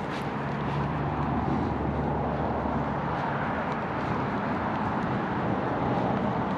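Steady distant engine drone with a low hum underneath, rising slightly in the first second and then holding even.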